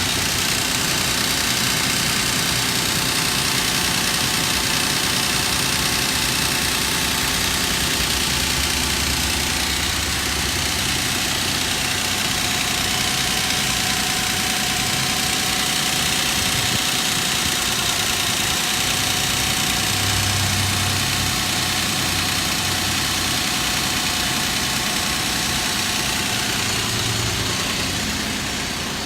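2006 Nissan Frontier engine idling, not yet warmed up, with a rapid metallic knock from the passenger-side cylinder head. The owner puts the noise down to worn timing chain guides letting the chain hit the tensioner, metal on metal.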